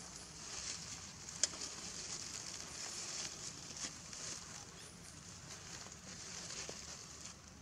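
Steady high-pitched insect chorus of outdoor forest ambience, with one sharp click about one and a half seconds in and a few faint light ticks.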